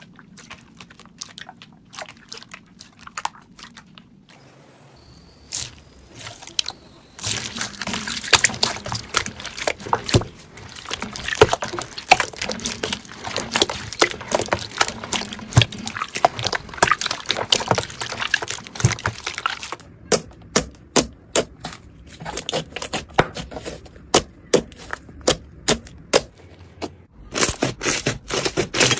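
Hands squeezing and kneading slime: wet squelching with many small pops and crackles. The sound is sparse at first, thick and continuous through the long middle stretch, and comes in separate squishes again near the end.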